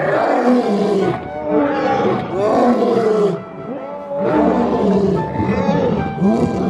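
Lion roaring in a series of long calls, each one to two seconds, with short breaks between them.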